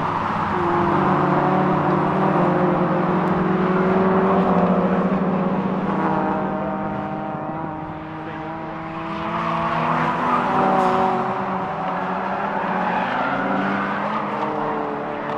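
Cars lapping a race circuit, heard from trackside: several engines at once, overlapping, their pitch rising and falling as they rev and pass. It is loudest about a third of the way in and again about two-thirds through.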